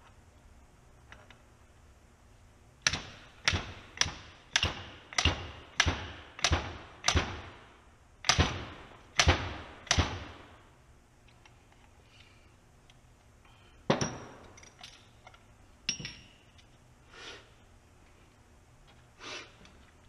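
Marzocchi 48 mm fork being knocked together to seat a new fork seal in the lower leg: about a dozen sharp knocks in quick succession, then a few slower, spaced knocks.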